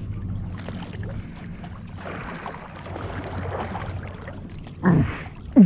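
Small boat motoring in toward the shore: a steady low engine hum with water and wind noise. Near the end come two short, loud sounds that fall in pitch.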